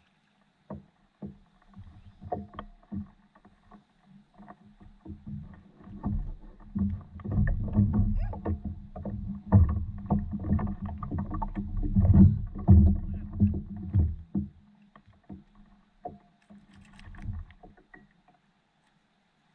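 Irregular knocks and thumps against a fishing paddleboard's hull while a caught fish is landed and handled on it. The knocks come thick and loud through the middle, then thin out to a few light clicks near the end.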